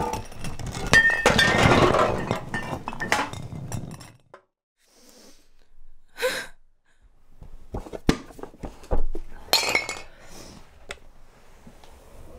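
Things crashing and breaking with glassy clinks for about the first four seconds. After a short lull come scattered sharp clinks and taps of glass and hard objects being handled.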